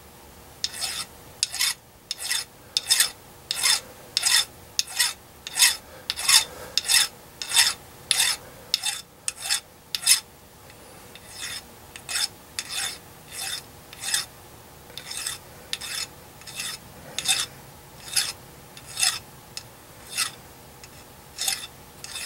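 Flat hand file scraping across the sharp corners of a small aluminium part in steady strokes, about one and a half a second, with a brief pause a little after ten seconds in.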